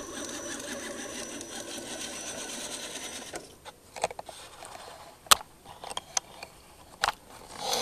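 Electric motor and gears of a radio-controlled scale crawler whining steadily as it drives through mud, cutting off after about three and a half seconds. Then a few sharp clicks and knocks, the loudest about five seconds in.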